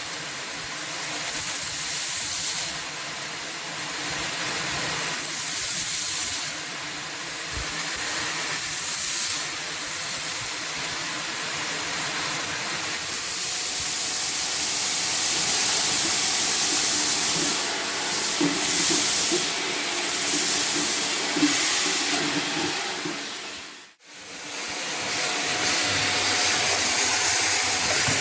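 Shark vacuum cleaner running loud on a hard floor, a steady high airy hiss as its brush roll sucks up scattered debris, with rattly crunching bits mixed in. It cuts out for a moment late on and comes straight back.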